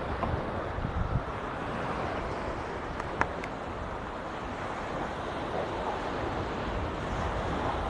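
Small Mediterranean waves washing onto a sandy beach, with wind rumbling on the microphone. A few faint clicks about three seconds in.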